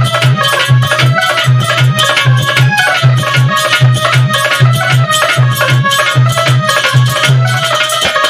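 Instrumental break of a Hindi devotional bhajan: harmonium playing a melody with held notes over a steady dholak beat, with small jingling percussion ticking along.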